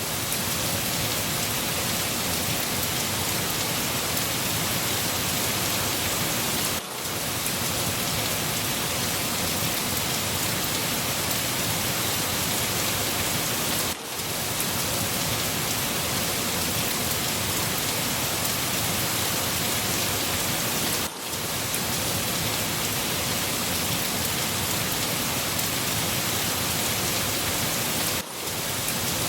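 Steady heavy rain, an even hiss of drops on a surface, with a brief dip in level about every seven seconds.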